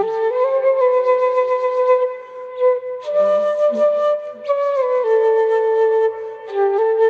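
Flute playing a slow melody of long held notes that step up and down, with brief pauses between phrases.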